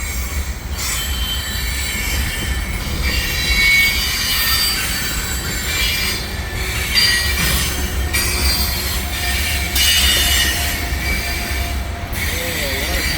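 Freight cars of a CN train rolling through a tight curve, their steel wheels squealing against the rails in shifting high-pitched tones over a steady low rumble.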